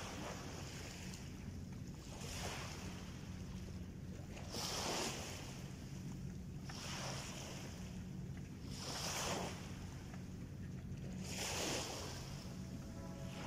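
Small waves lapping and breaking on a sandy shore, one wash every two to two and a half seconds, over a steady low hum. Music comes in near the end.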